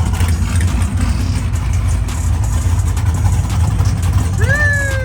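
Race car engine running with a steady low rumble. Near the end a short whine rises sharply in pitch and then slides back down.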